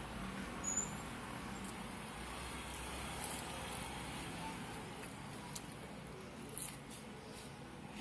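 Steady background road-traffic noise, loudest about a second in as a vehicle goes by, with a few faint crunches as raw onion is bitten and chewed.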